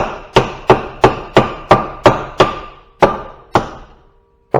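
Hammer blows on a metal part of scrapped equipment, about three a second, each with a short metallic ring, being knocked loose. The blows pause about a second before the end, and two more land right at the close.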